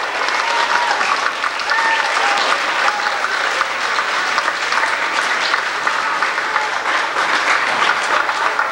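Audience applauding steadily: many hands clapping together, with a few faint voices calling out over it.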